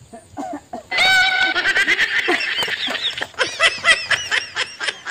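Domestic fowl squawking: one long, shrill call about a second in, then a quick run of short clucking calls.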